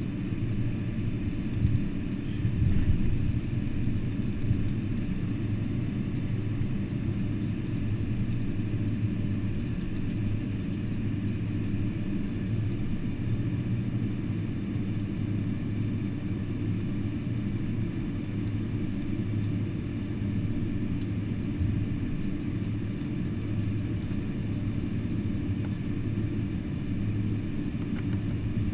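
Cabin noise of a Boeing 747-400 rolling along the taxiway after landing: a steady low rumble and engine hum, with a few bumps about two to three seconds in.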